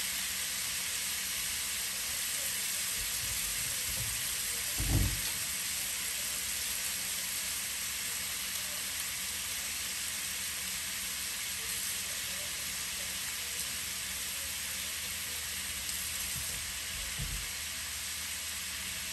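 Ground pork frying with garlic in a nonstick pan, sizzling steadily, with a dull low thump about five seconds in.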